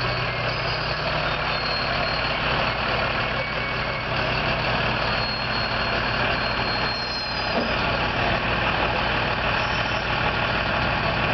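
Fire engine's diesel engine idling close by, a steady low running note with a constant wash of noise over it.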